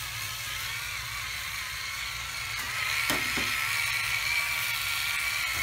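Hurricane Spin Duster's small electric motor spinning the mini duster head, a steady high whine over a low hum, with a brief tick about three seconds in.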